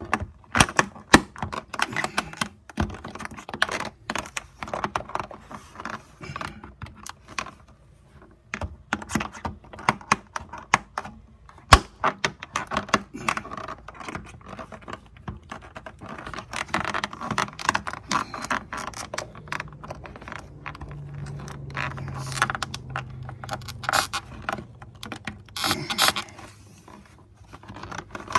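Irregular clicking, scraping and rattling as a vinyl side jamb liner of an Andersen Narroline window is pried and worked out with a small screwdriver, mixed with handling knocks close to the microphone.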